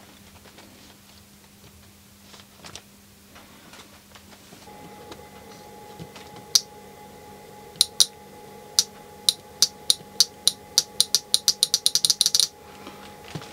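Small circuit-board relay clicking in and out as its coil is powered by hand from a bench power supply. A few sharp separate clicks at first, then quickening to a rapid chatter that stops suddenly about a second before the end. The relay is working, so it is not the fault.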